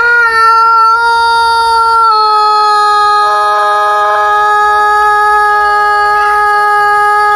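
A rooster giving an unusually long, drawn-out crow: one loud held note that drops slightly in pitch about two seconds in and keeps going without a break.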